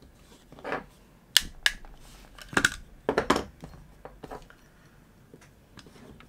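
Clicks and knocks from a Tokyo Marui Glock 19 airsoft pistol's plastic frame and small parts being handled and set down on a work mat, several in the first three and a half seconds. After that there is only faint handling.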